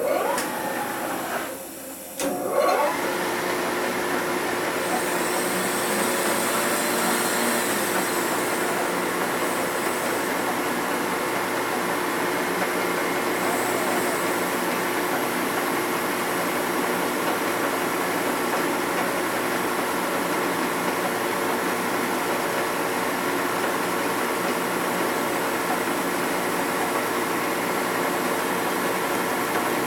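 A head-surfacing machine starts about two seconds in and then runs steadily, cutting across the deck face of an aluminium Harley Sportster cylinder head. It is taking a cleanup pass to flatten the warped head.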